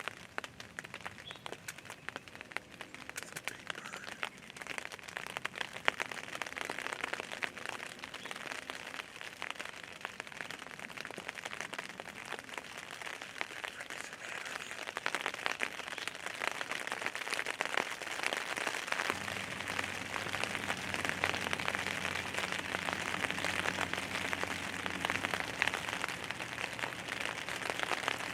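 Steady rain pattering, a dense hiss of many small drop ticks. A low hum joins about two-thirds of the way through.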